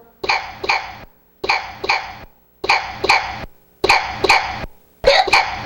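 A young girl hiccuping, two sharp hiccups at a time, in a pattern that repeats identically about five times at a steady pace, as if one short bit were looped.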